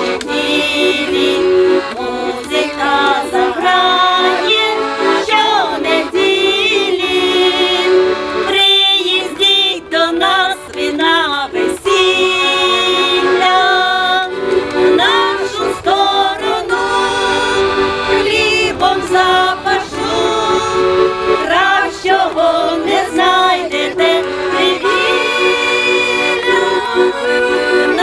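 Ukrainian folk song performed by a vocal ensemble with accordion accompaniment: the accordion holds steady chords while voices sing with vibrato.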